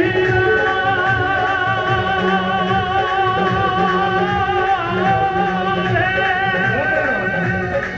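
Background music: a voice holds two long, wavering notes, the first breaking off just before the halfway point and the second running nearly to the end, over a steady drum beat.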